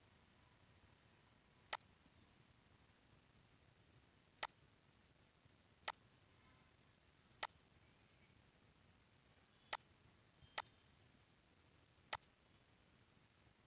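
Computer mouse button clicking seven times at irregular intervals, one to two seconds apart, each a single sharp click, a few followed at once by a softer release click.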